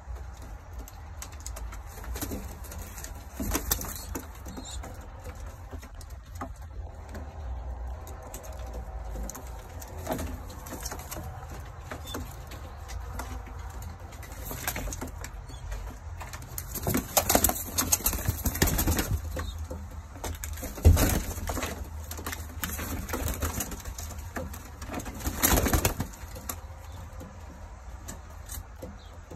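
Young pigeons, about three weeks old, cooing softly, with a few louder rustling bursts as they shuffle about and over a steady low hum.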